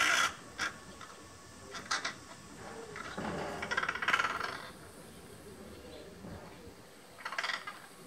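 Crow calling: a few short caws, then a longer call about three to four and a half seconds in, and another short caw near the end.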